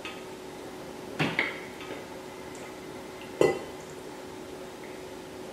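Metal ladle clanking against a stainless steel pot while scooping out candied yams and syrup: a clank about a second in and a louder one about three and a half seconds in, each ringing briefly.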